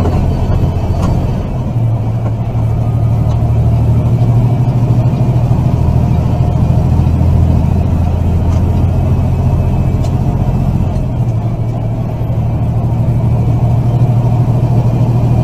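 Semi-truck's diesel engine and road noise heard inside the cab while cruising on the highway: a steady low drone that eases off briefly twice.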